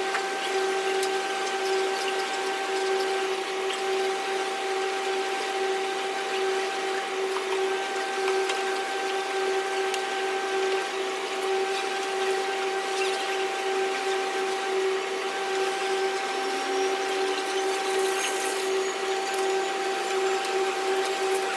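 Steady machine hum with a constant pitched drone and an even hiss of moving air: commercial laundromat dryers and washers running.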